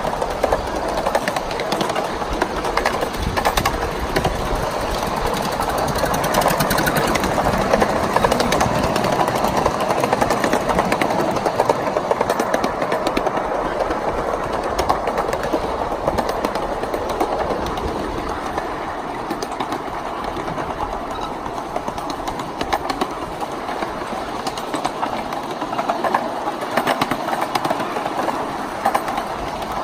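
Steel wheels of a 1-inch-scale riding train rolling along the track, heard from one of its cars: a steady rolling noise with many small clicks and rattles.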